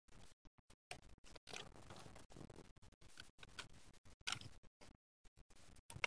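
Faint, scattered clicks and scratches of a small screwdriver working on a plastic RC remote control.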